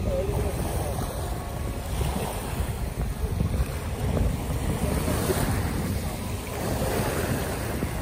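Small waves lapping and washing up onto a coarse sand shore, swelling and ebbing every couple of seconds, with wind rumbling on the microphone.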